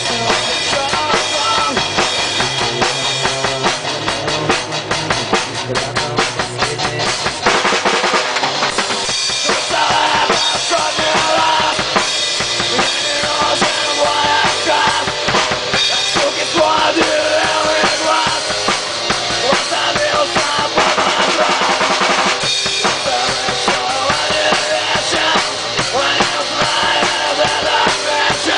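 Live rock band playing at a rehearsal, the drum kit loud, with kick and snare hits over the band.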